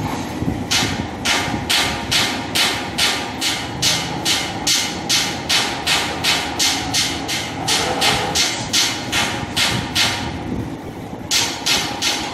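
Sheet-metal guillotine shear running continuously, its blade beam cycling in a fast, even rhythm of about two sharp clacking strokes a second over the steady run of the machine. The strokes stop for about a second near the end, then start again.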